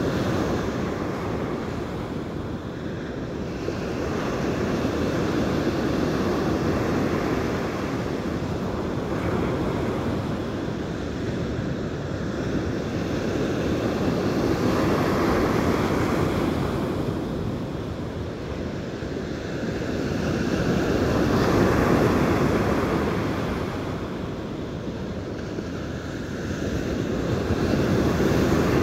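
Ocean surf breaking on a sandy beach, a steady rush of water that swells and fades as each wave comes in, every several seconds.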